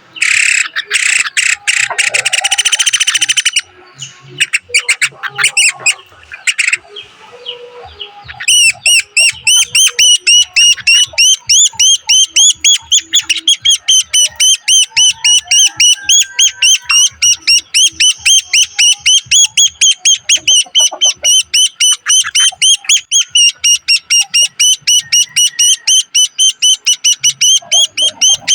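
Woodpecker nestlings begging at the nest while being fed: a loud, dense burst of high calling in the first few seconds and some scattered clicks, then from about eight seconds in a fast, steady series of short high chirps, about four or five a second.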